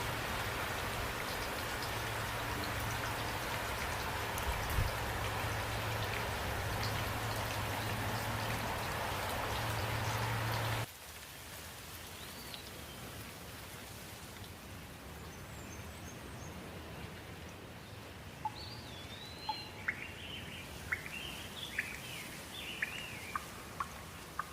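Steady rain with a low hum under it, which cuts off abruptly about eleven seconds in to a quieter background where birds chirp repeatedly.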